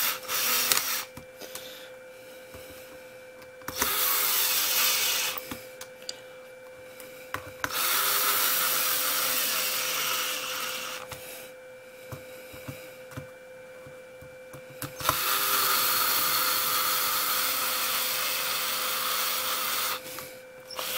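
Cordless power screwdriver running as it drives screws into a plastic RC-car chassis brace, in four spells with short pauses between: a brief one at the start, then three of a few seconds each, the last two the longest.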